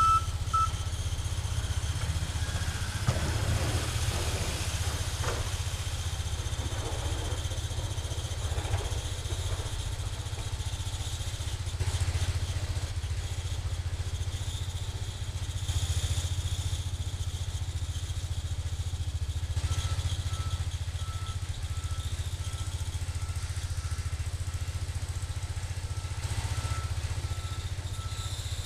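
Cub Cadet 149 garden tractor's single-cylinder Kohler engine running steadily under load while plowing snow. A reversing alarm beeps at the start and again faintly for the last several seconds.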